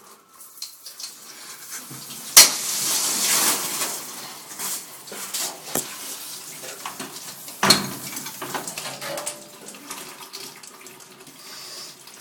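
Water spraying and splashing out of a freshly cut water pipe. It starts with a sharp knock about two seconds in, is loudest just after, and runs on with scattered knocks and clatter.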